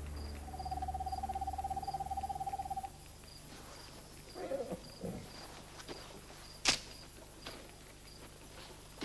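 An owl's monotone trill, one pulsing call held on a single pitch for about two and a half seconds, over crickets chirping steadily. A single sharp click comes about two-thirds of the way through.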